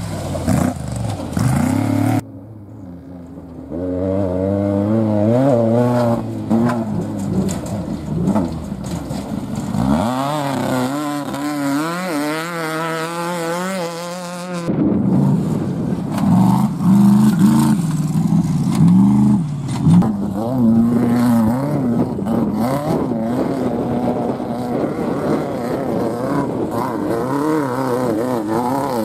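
Off-road race trucks and buggies passing one after another, their engines revving up and down hard. The sound changes abruptly about two seconds in and again about halfway, where one pass cuts to the next.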